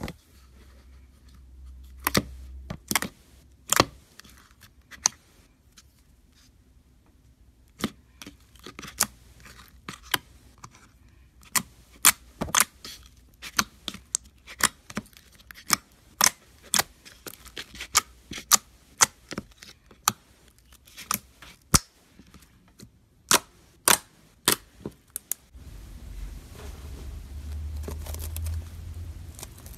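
Clear slime being pressed and squished, giving sharp, irregular pops and clicks as trapped air bubbles burst. Near the end, foam-bead slime (floam) squeezed in the fingers gives a denser, steady crackling.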